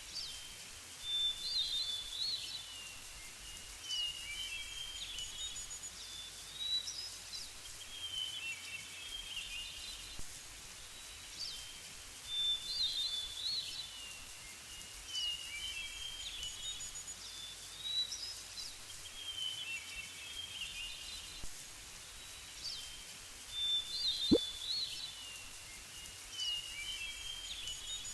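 Bird calls: bursts of high chirps and short whistles, the same stretch of calling repeating about every 11 seconds. One short thump about 24 seconds in.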